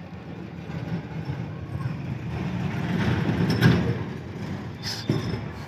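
A motor vehicle passing by: a low rumble that swells to a peak a little past the middle and then fades, with a few small clicks of metal parts being handled near the end.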